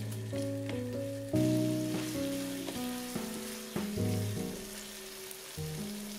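Vegetables in sauce sizzling in a frying pan over a gas flame, an even hiss that is strongest from about a second in until near the end. Background music of picked notes plays over it.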